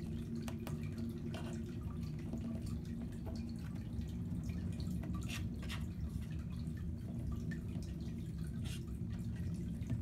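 Siberian kittens suckling at their mother, making many small, wet clicking and smacking sounds, over a steady low rumble.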